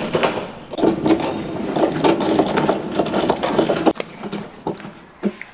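Metal table laden with a camel carcass being pushed over paving stones, rattling and scraping rapidly, stopping abruptly about four seconds in, then a few single knocks as it is handled.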